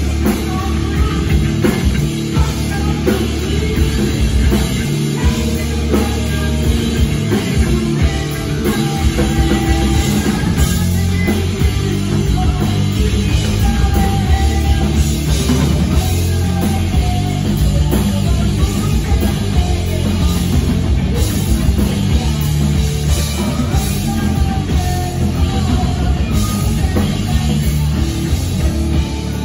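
Live hard rock band playing loud: distorted electric guitar, bass guitar and a drum kit, with a woman singing into a microphone.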